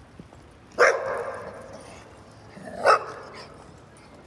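A dog barking twice, about a second in and again near three seconds, each bark loud and sudden with a short echoing tail.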